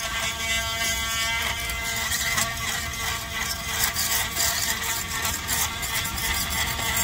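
Handheld power drill running with a steady whine.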